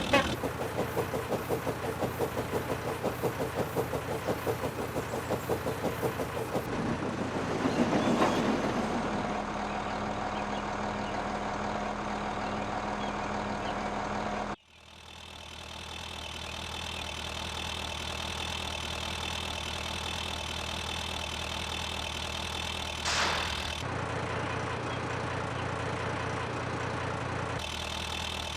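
Steam locomotive sound effects. Regular chuffing runs for the first several seconds, followed by a louder rush of noise about eight seconds in, then the engine standing with a steady hum. The sound cuts off abruptly halfway through and resumes as a steady running hum, with one short sharp sound near the end.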